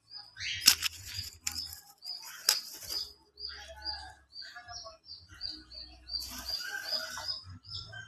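Pet parrots chirping in a quick regular series of short high chirps, about three a second, mixed with lower calls and the flutter of wing flaps. Two sharp snaps, about 0.7 s and 2.5 s in, are the loudest sounds.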